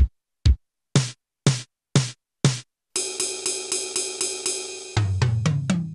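Drum kit sounds in sequence: two bass drum beats half a second apart, then four brighter drum hits at the same pace. Then a cymbal struck about four times a second, ringing on between strokes, and a quick run of four tom hits falling in pitch.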